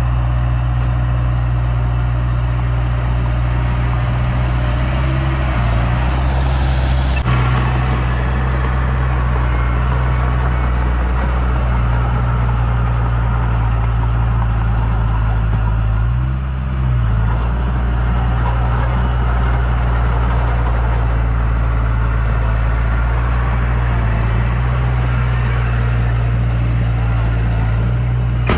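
Heavy diesel earthmoving machinery running steadily with a constant low engine drone, which dips briefly about two-thirds of the way through. A rougher rushing, scraping noise joins suddenly about a quarter of the way in and carries on over the engine.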